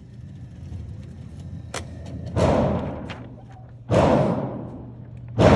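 Three gunshots about a second and a half apart, each with a long echoing decay as in an indoor range, with a faint click shortly before the first.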